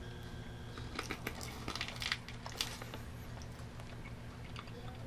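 A person chewing gummy candy, with a cluster of small clicks and crackles between about one and two and a half seconds in, over a steady low hum.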